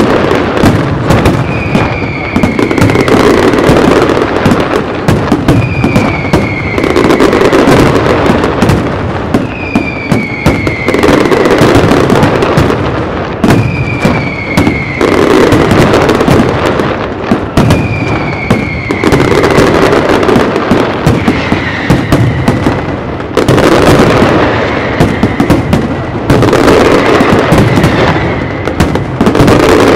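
Professional aerial fireworks display going off in a dense, continuous barrage of rapid bangs and crackling, with a short falling whistle about every four seconds.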